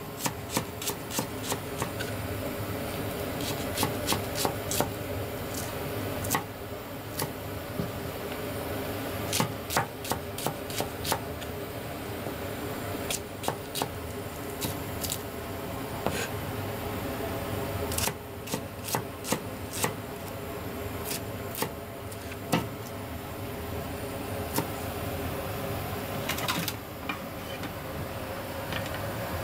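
Kitchen knife chopping thin slices on a plastic cutting board: clusters of quick, sharp taps with pauses between them, over a steady background hum.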